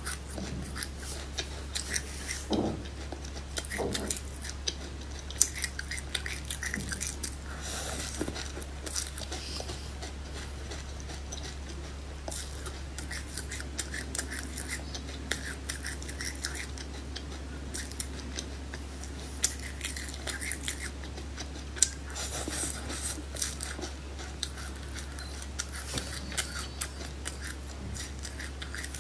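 Eating sounds: a continuous run of small sharp clicks and crunches from chewing and from utensils tapping a dish, over a steady low hum.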